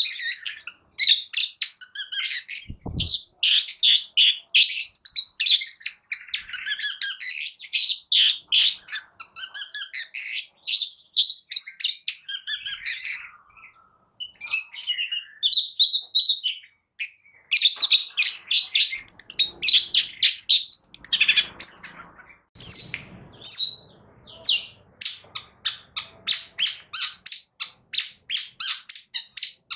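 Long-tailed shrike (cendet) singing a fast, unbroken run of sharp chirps and rapid trills, with a short pause about halfway through.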